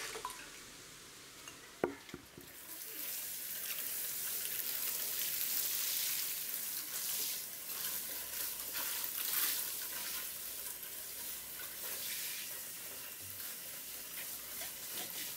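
A short pour of liquid into a plastic watering can and a single knock about two seconds in, then a steady hiss of water sprinkling from a watering can's rose onto soil.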